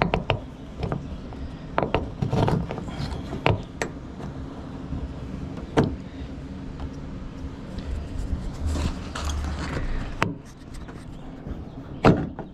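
Scattered clicks and knocks of a car door lock mechanism being worked loose inside the door cavity after its rivet has been drilled out, with the loudest a sharp knock near the end.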